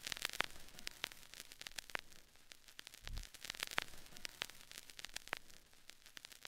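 Faint hiss and crackle, like static, with sharp ticks scattered through it and one deep boom about three seconds in.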